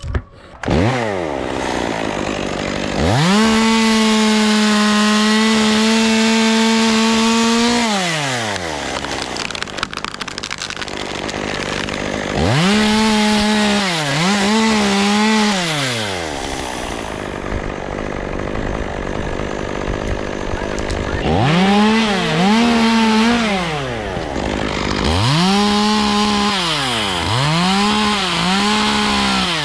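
Chainsaw revving to full throttle and dropping back to idle between cuts: one long steady run of about five seconds, then two shorter revs, then a series of quick bursts near the end.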